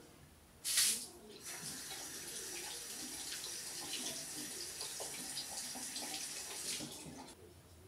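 Water running steadily from a bathroom tap into the sink, after a short loud burst of noise just under a second in; the flow stops about seven seconds in.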